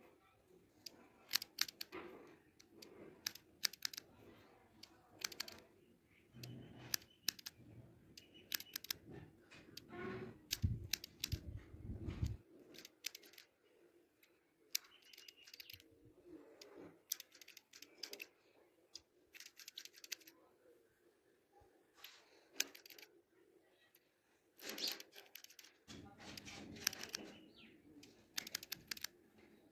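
Barber's scissors snipping beard hair over a comb: quick runs of crisp snips with short pauses between.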